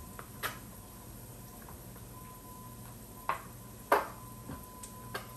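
Kitchen knife chopping cooked bacon on a wooden cutting board: a few separate knocks of the blade on the board, the loudest about four seconds in. The knife is one she thinks needs sharpening.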